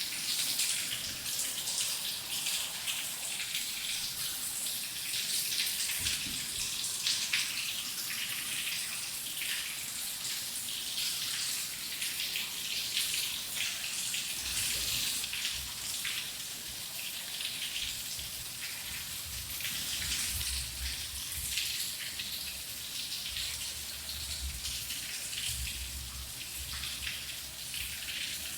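Heavy rain falling: a steady hiss thick with the patter of countless drops. From about halfway through, a faint low rumble comes and goes underneath.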